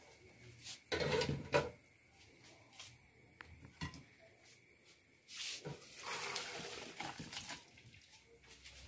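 Pots, lids and dishes being handled: scattered clinks and knocks, with a few short rushes of noise, one about a second in and a longer one past the middle.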